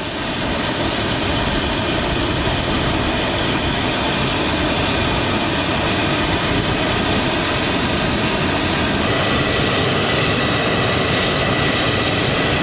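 Steady aircraft turbine noise: a broad rush with several high whining tones. It swells over the first second and then holds level.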